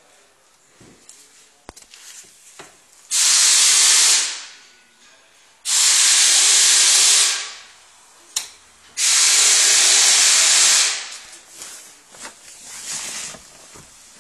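Three loud bursts of hiss, like pressurised air or spray being released, each lasting one to two seconds with a gap of a second or two between them.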